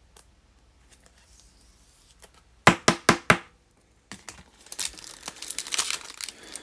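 Four quick sharp taps close together, then a foil trading-card pack wrapper crinkling and tearing as it is opened, the rustle growing louder toward the end.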